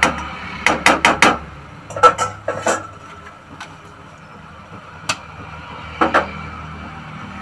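A wooden spatula knocked a few times against the rim of a kadai to shake off curry, then set down with clinks in a steel bowl, followed by a couple of single utensil clinks about five and six seconds in. A low steady hum runs under it.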